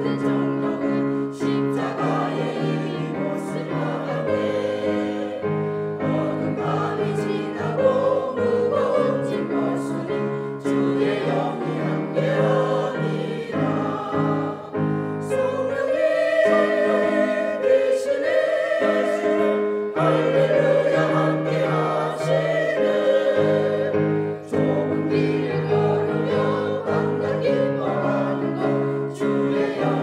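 A small mixed group of women's, men's and a child's voices singing a church song together in unison-style choir fashion, with sustained accompaniment underneath.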